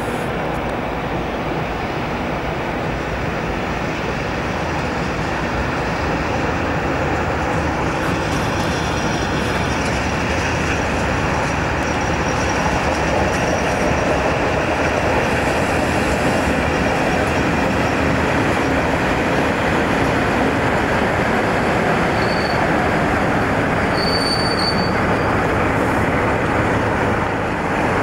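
British Rail Class 47 diesel-electric locomotive running under power as it hauls passenger coaches past, its engine and the wheels on the rails growing louder as it draws near. Two brief high wheel squeals come near the end.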